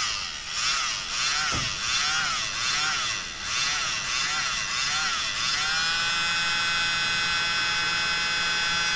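Small battery-powered mini blower running, its motor whining. The pitch swings up and down about twice a second at first, then holds steady from about halfway in.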